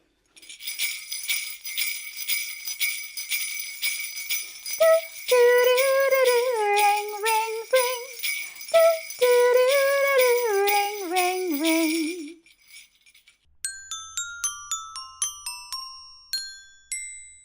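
Jingle bells shaken steadily, with a voice singing a tune over them from about five seconds in. The jingling stops at about twelve seconds, and near the end comes a short run of bright struck notes that each ring out.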